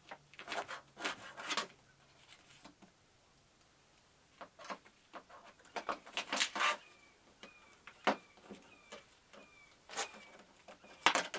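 Scattered clicks, knocks and clatter of plastic and metal parts as a flat-screen TV is pried apart by hand. From about seven seconds in, a bird repeats a short, slightly falling chirp about twice a second.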